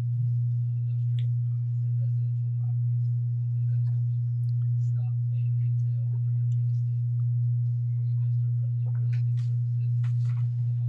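Steady low electrical mains hum on the studio audio, a single unwavering tone, with faint small clicks and soft murmurs beneath it.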